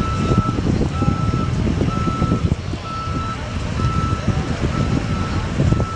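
An electronic warning beeper sounding one steady tone about once a second, each beep lasting roughly half a second, over a low, uneven rumble.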